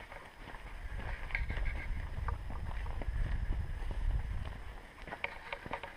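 Low wind rumble buffeting the microphone of a moving camera, swelling from about a second in and easing near the end, with faint scattered clicks and taps over it.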